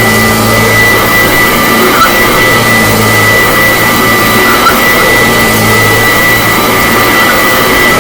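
1975 Kirby Classic Omega upright vacuum cleaner running loudly and steadily while vacuuming, with a constant high fan whine. Its low hum swells and eases every couple of seconds.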